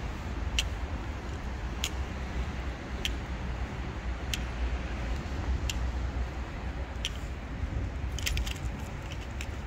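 Footsteps on a cobblestone street, one sharp click about every second and a quarter, over a steady low rumble; a quick cluster of small clicks near the end.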